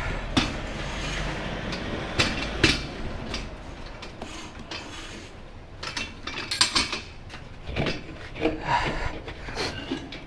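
Scattered metal clicks and knocks from working a motorcycle tyre bead breaker, pressing the tyre bead down off the rim, over a steady low rumble.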